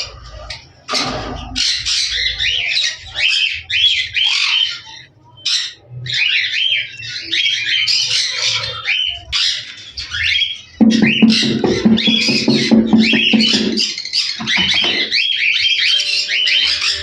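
Many caged birds squawking and chattering continuously in rapid, high calls. From about eleven to fourteen seconds in, a low buzzing, pulsing sound runs underneath.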